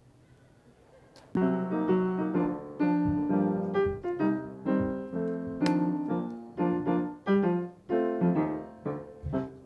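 Near quiet, then about a second and a half in a piano starts playing the introduction to a song: struck chords over a low bass line, each note fading after it is hit.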